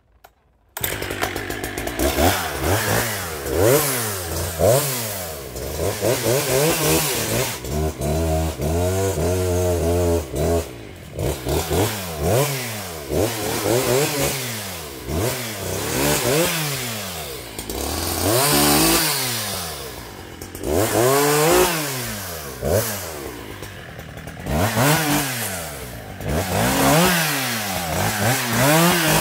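Husqvarna 362XP two-stroke chainsaw limbing an oak, revving up and down again and again as it goes through the branches, with a steadier stretch about a third of the way through. The saw has a new piston and rings in a scored, honed cylinder and is still breaking in.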